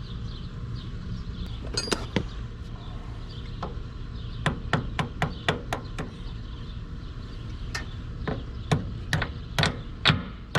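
Hammer knocking a retaining pin into the tilt and trim ram's mount on an outboard motor. A few light knocks about two seconds in, a quick run of about five taps near the middle, then steady blows about two a second toward the end.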